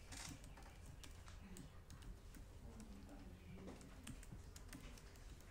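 Faint, scattered clicks of typing on a laptop keyboard over a steady low room hum.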